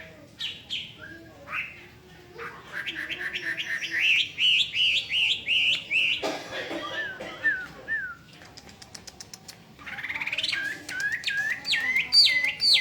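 Chinese hwamei singing: loud, varied whistled phrases, each note repeated in quick runs of about five a second, then a few lower slurred notes. After a short pause about two-thirds through, it starts a new run of loud down-slurred whistles.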